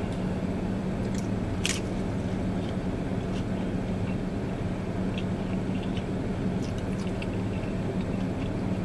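A person chewing food with the mouth close to the microphone, soft wet smacks and small clicks, one sharper click about two seconds in. A steady low hum from inside the car runs underneath.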